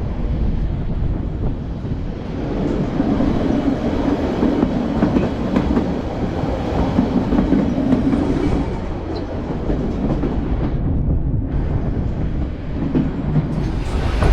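White Pass & Yukon Route train running on the rails: a steady rumble of the wheels with light clicking, and a low hum that swells for a few seconds after the start.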